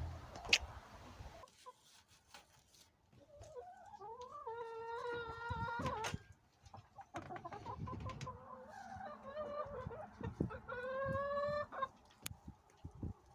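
Chickens calling: two drawn-out calls, the first about four seconds in and rising in pitch, the second near the end, with faint clucks and small knocks between.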